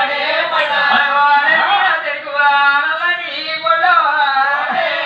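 A group singing a Telugu folk song to the goddess Mangadevi, voices carrying a continuous, wavering melody without pause.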